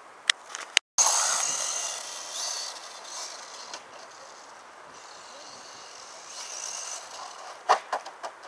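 Traxxas Slash 1/16 VXL radio-controlled truck's brushless motor whining, its pitch rising and falling, over tyres hissing on gravel. Several sharp knocks come near the end as the truck tumbles onto its side.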